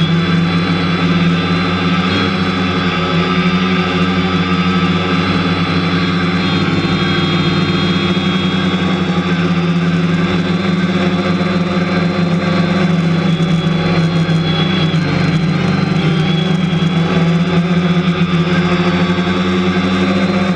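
Quadcopter drone's electric motors and propellers buzzing at a steady pitch, heard close up through the camera mounted on the drone.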